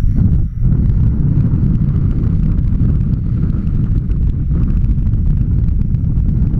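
Wind rushing over the camera microphone of a paraglider in flight: a loud, steady, low rumble with no pitched tone in it.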